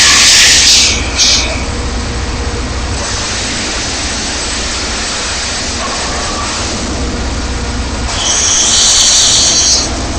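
Diesel mobile wood chipper running with a steady low rumble. Loud, harsh high-pitched noise rises over it twice: for about a second at the start, and again for about a second and a half near the end.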